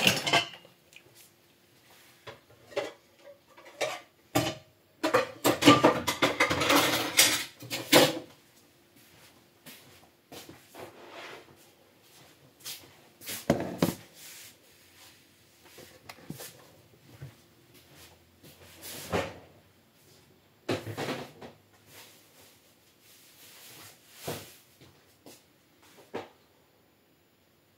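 Scattered knocks and clicks, with a denser run of clatter about five to eight seconds in.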